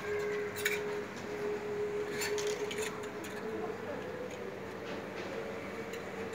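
Light clinks of clothes hangers on a metal shop rail: one just under a second in and a quick cluster about two seconds in, over a faint steady background tone.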